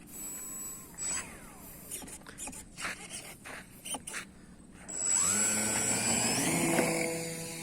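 RC plane's electric motor and propeller spooling up with a quickly rising whine about five seconds in. It runs at a steady high pitch, then fades near the end. Before that there are only a few faint clicks and knocks.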